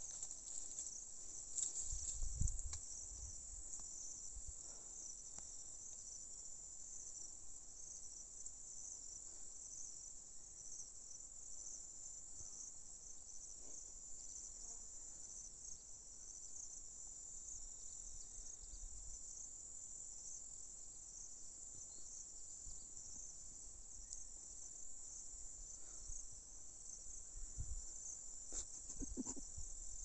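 Steady high-pitched chorus of insects, with a few low thumps near the start and near the end.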